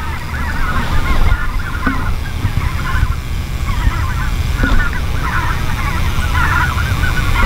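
A large flock of greater white-fronted geese (specklebellies) flying overhead and calling, with many short, high calls overlapping without a break. A low rumble sits underneath.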